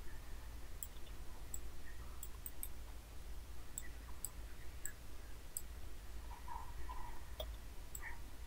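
Faint, irregular clicks of a computer mouse being used, over a steady low background hum.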